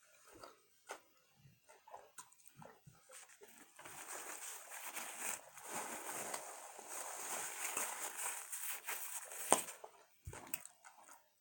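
Close-miked eating sounds: scattered mouth clicks and smacks, then a rustling, crackling noise for about six seconds, ending with a sharp click and a soft thump.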